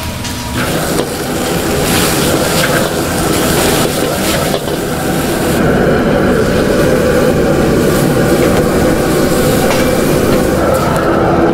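A gas wok burner runs with a steady rush under a steaming wok of soybean sprouts and noodles. The sound grows louder about a second in as water is ladled into the hot wok. The metal ladle clicks and scrapes against the wok a few times as the food is stirred.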